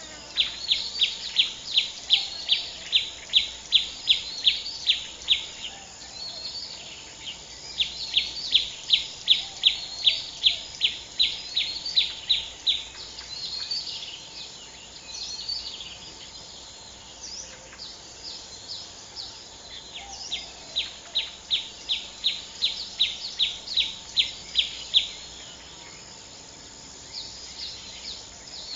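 A bird calling a rapid series of high repeated notes, about three or four a second, in three runs of about five seconds each, with fainter bird chirps between the runs.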